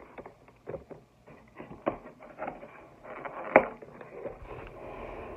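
Paper takeout packaging being handled: scattered rustling and light taps, with one sharper knock about three and a half seconds in.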